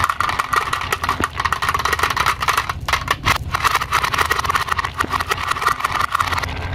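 A small toy motor whirring steadily while marbles clack and click, rolling and knocking against the walls of a carved wooden wave track. The motor sound breaks off briefly about three seconds in.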